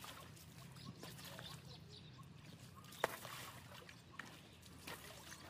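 Faint sloshing and squelching of wet mud under an elephant calf's feet in a mud wallow, with scattered small clicks and one sharp click about three seconds in.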